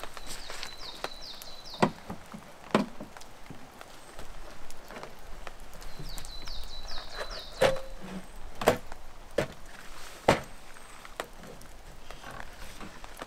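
Hard camping cases being lifted, shifted and set down, giving several sharp knocks and thuds. Twice a bird sings a quick run of high, falling notes in the background.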